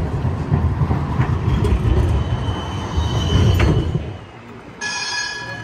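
Low-floor city tram running close by, with a dense, loud rumble of wheels on rail and street noise. The rumble drops away about four seconds in. Shortly after, a steady high-pitched tone starts suddenly.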